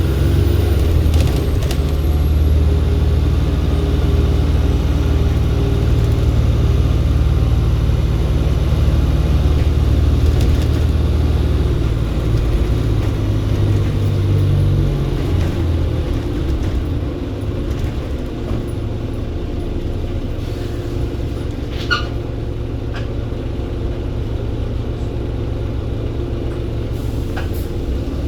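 Volvo B7RLE bus's 7-litre six-cylinder diesel running hard with a high turbo whistle in the first couple of seconds, then easing to a lighter, quieter run about halfway through. A short sharp click sounds near the end.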